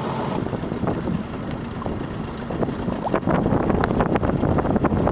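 Wind buffeting the camera microphone on a sailboat out on open water, a steady rush that turns into heavier, louder gusts about three seconds in.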